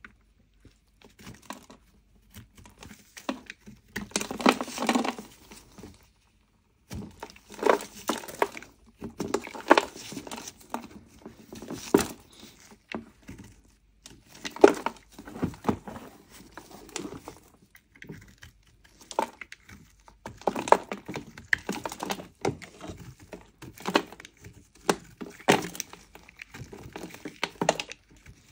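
A snap-off utility knife blade scraping the crumbly outer surface off a lump of clay in short, irregular strokes, with bits of clay breaking away.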